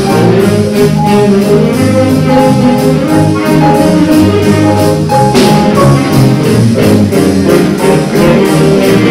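Live big band playing jazz, with saxophones and trumpets sounding together over a steady beat.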